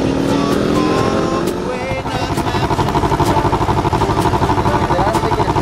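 Motorcycle engine running on the move, its pitch rising slowly over the first two seconds. Then it changes abruptly to a steady, pulsing idle at a standstill.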